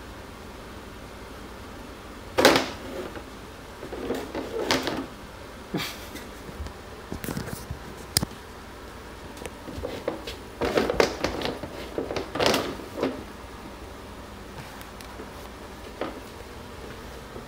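Hollow black plastic bin lid knocking, clattering and scraping on a hard floor as cats paw at it and climb into it, in irregular bursts. The loudest knock comes about two and a half seconds in, with a run of clatters a little past ten seconds.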